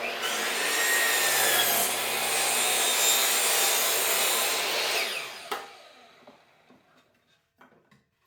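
Power cutoff (miter) saw starting suddenly and cutting through a rough-cut white pine board for about five seconds, then switched off and winding down.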